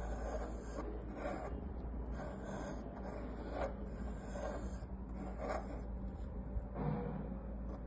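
Pencil lead of a drawing compass scratching around a circle on a wooden disc, in repeated dry strokes about once a second, over a steady low hum.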